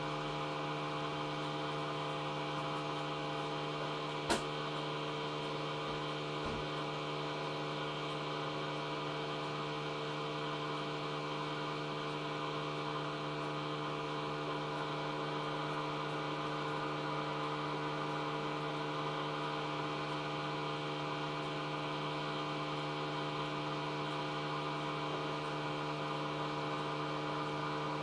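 Samsung washing machine running with a steady electrical hum near the end of its wash cycle, with one short click about four seconds in.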